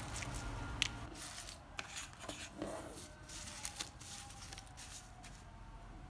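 Thin strips of coloured paper rustling and crackling as they are handled and spread out on a desk, with irregular sharp ticks and taps.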